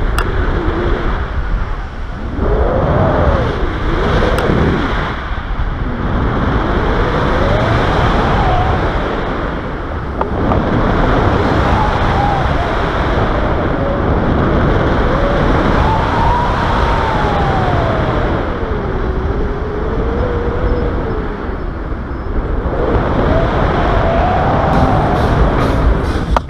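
Airflow of a paraglider in flight buffeting the action camera's microphone: a steady, loud rushing rumble. A faint whistle slowly wavers up and down in pitch through it.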